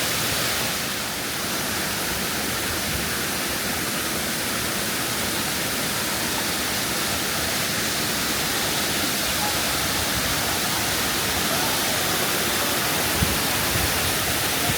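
Waterfall pouring, a steady rush of water.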